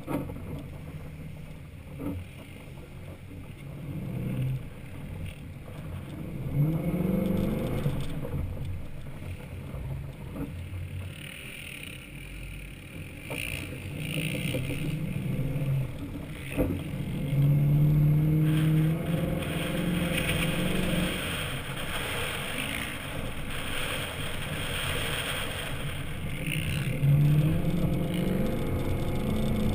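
Lifted Chevy Avalanche's V8 with a Flowmaster exhaust pulling the truck through sand, its note rising in several surges of throttle, heard from a camera mounted on the hood.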